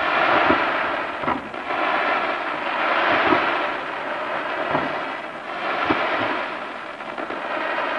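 Fireworks finale: a dense crackle that swells and fades in waves, punctuated by about six separate bangs.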